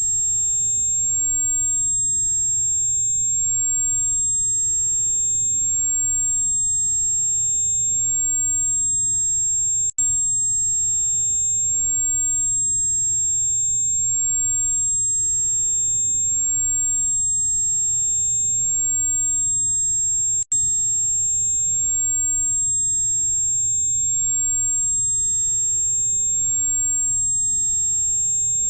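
Electronically generated, very high-pitched steady tone with fainter steady tones above and below it, over a soft low hiss. It is a tinnitus relief sound. The tone cuts out for an instant twice, about a third and two-thirds of the way through.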